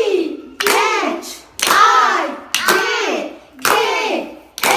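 Young children singing together, clapping about once a second on the beat. Each clap is followed by a sung phrase.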